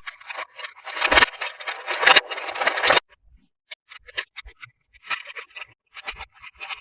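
Crinkling and rustling of plastic toy packaging being handled and opened: dense crackling for about three seconds, then sparse light crinkles and clicks.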